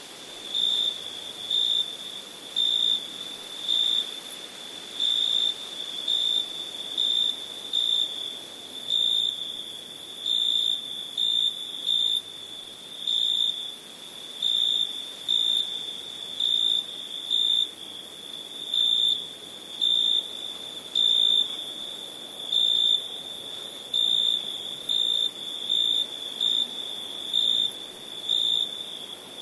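Cricket chirping: a steady high trill that swells into louder chirps about once a second, somewhat irregularly.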